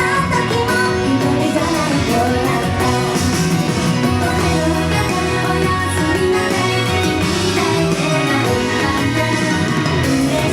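Idol pop song playing loud over a live sound system, with a steady beat, guitar and some singing.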